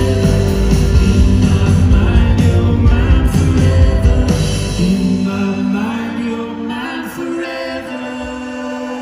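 Live rock band playing with singing, heard from the audience: acoustic guitar, drums, electric guitar and keyboard. About five seconds in, the heavy low drum-and-bass part drops away, leaving quieter sustained chords.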